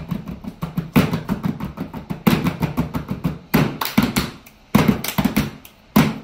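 Hands slapping and tapping on a padded board top in a fast rhythmic pattern, with a heavier slap about every second and a quarter.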